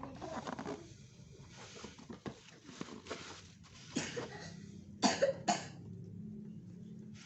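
A man coughs twice, sharply, about five seconds in, over scattered clicks and rustling from handling the packaging.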